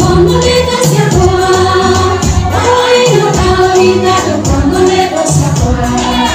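Gospel worship song: a woman singing lead into a microphone through the church PA, with several voices singing along, over amplified backing music with a steady bass beat.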